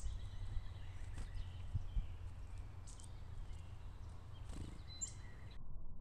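Faint chirps and short calls of small woodland songbirds over a steady low outdoor rumble, with a few soft clicks.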